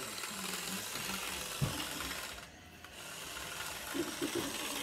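Toy remote-control car's small electric motor and plastic gears whirring and rattling as it drives on a hard floor with its wheels stripped so it slides. There is a single knock about a second and a half in, and the whirring drops away briefly about halfway before starting again.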